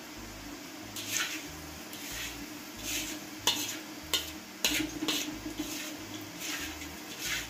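Wire mesh strainer scraping and tapping against a wok and a small metal plate as fried garlic is scooped out of the oil to drain. There are repeated scrapes and a few sharp metal clicks around the middle, over faint oil sizzle.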